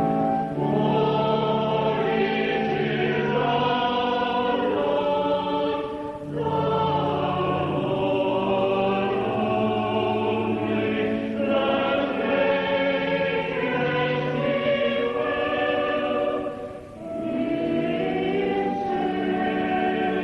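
Church choir singing in parts with organ accompaniment, held notes in phrases with short breaks between them.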